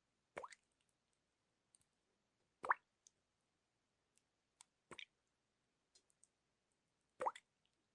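Water drops plopping, four of them at an even pace of about one every two and a half seconds, each a short plink that rises quickly in pitch, with a few tiny faint ticks between them.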